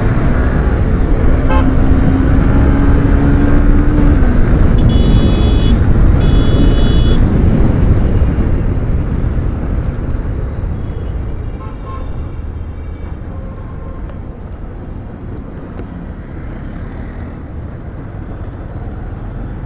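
Wind rushing over the microphone and road noise from riding a motorcycle through city traffic, with two short vehicle horn honks about five and six and a half seconds in. The rush eases after about eight seconds.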